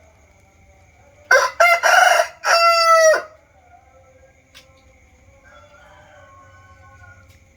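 Aseel rooster crowing once, about a second in: a few short broken notes, then a long held final note, the whole crow lasting about two seconds.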